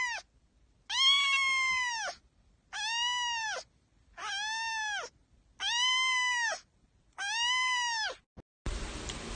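A cat meowing five times in a row, each meow long and drawn out, rising then falling in pitch, about a second and a half apart.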